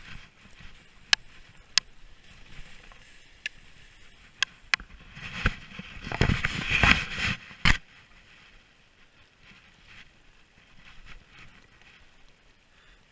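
Skis running through chopped-up off-piste powder snow: a hissing scrape of snow with several sharp clicks and knocks. The scrape swells into a loud rush about five seconds in and ends with a sharp knock just before the eight-second mark, then the snow hiss goes quiet.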